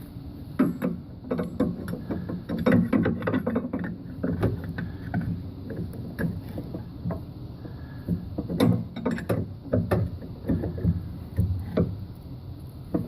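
A hand tool tightening the nut on a riding mower's drive-belt pulley: a run of irregular metal clicks and knocks in clusters.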